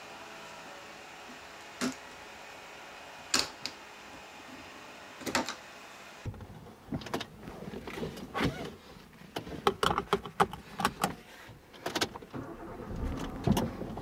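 Faint steady room hiss with a few isolated clicks. Then, about six seconds in, a low rumble begins and many sharp clicks and knocks follow from a plastic cat carrier being handled with the cat inside.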